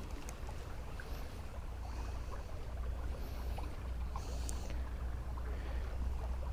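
Stream water running steadily, with a constant low rumble underneath and a few faint small clicks.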